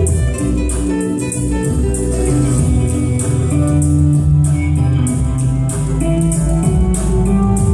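Background music with plucked guitar over a steady beat.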